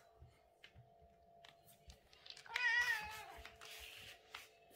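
A British Shorthair cat gives one short meow about two and a half seconds in, wavering in pitch. Faint small taps and a faint steady hum lie under it.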